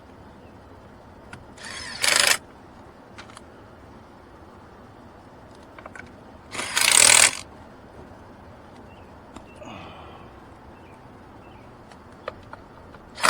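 A cordless power driver runs in two short bursts, about two seconds and seven seconds in, driving the steering column cover screws back in.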